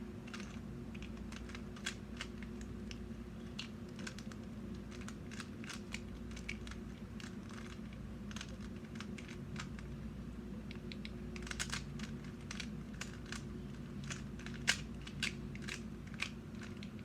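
A 3x3 Rubik's cube being turned quickly by hand: a run of irregular plastic clicks and clacks as the layers snap round, thickest about two-thirds of the way through. A steady low hum sits underneath.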